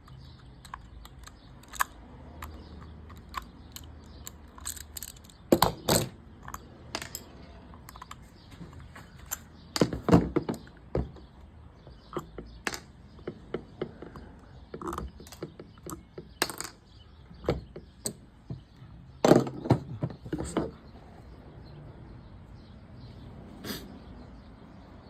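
Scattered small clicks, taps and a few louder knocks of a Penn fishing reel's parts and tools being handled during disassembly, with screws being worked loose.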